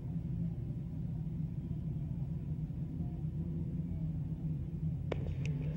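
A pack of crate-engine sportsman modified dirt cars running at slow pace speed under caution, a steady low engine rumble from the field. Two short clicks come about five seconds in.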